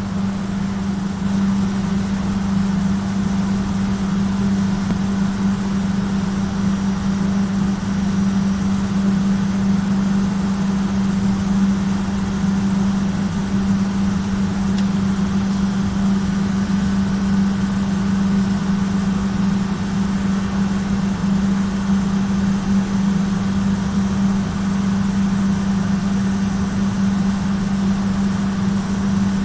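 Main electric motor running steadily with a strong, even hum and a rough rumble beneath it, the abnormal noise the motor is making.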